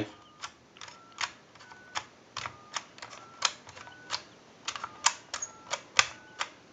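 Push-button keypad of a Mickey Mouse novelty telephone being dialed digit after digit: sharp button clicks about two a second, many followed by a brief touch-tone beep heard through an amplified receiver pickup.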